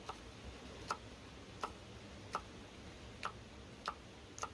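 Kitchen knife chopping hot green peppers on a wooden cutting board: about seven sharp knocks of the blade hitting the board, one roughly every two-thirds of a second.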